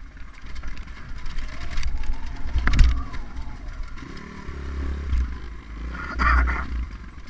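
Off-road dirt bike engine running and revving while riding a bumpy forest trail, with a deep rumble throughout, a sharp knock a little under three seconds in and another loud surge near the end.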